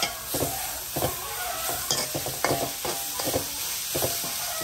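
A spoon scraping repeatedly around a large metal kadai as shallots and green chillies are stirred, about two to three strokes a second. Under it is a steady sizzle of them frying gently in oil on a low flame.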